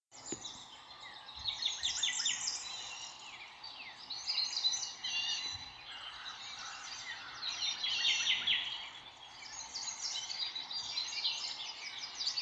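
Many small birds chirping and twittering at once, a dense chorus of short, quick calls that swells and fades in waves.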